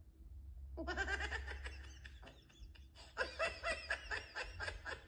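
Laughter sound effect: a person laughing in quick, repeated bursts, starting about a second in, easing off briefly, then picking up again.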